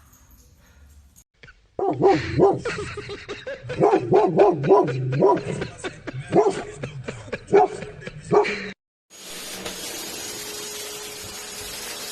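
A dog barking in a rapid run of short, pitched yips for about seven seconds, starting about two seconds in. It cuts off suddenly, and a steady hiss follows.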